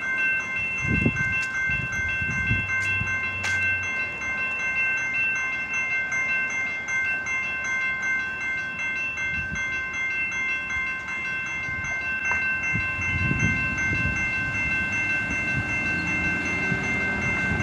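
Railroad grade-crossing signal bells ringing steadily with a quick repeating clang, warning of an approaching train. Low rumbles come and go underneath, about a second in and again near the end.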